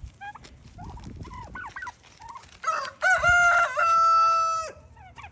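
A rooster crows once, about three seconds in: a short opening note, then a long held note that cuts off sharply. Softer clucking and chirping calls from turkeys and chickens come before it.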